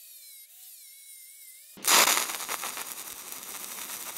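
An angle grinder whines faintly as it cuts a groove in the steel. A little under two seconds in, a stick-welding arc with 1/8-inch 7018 rod strikes and runs on with a steady, louder crackle and sizzle.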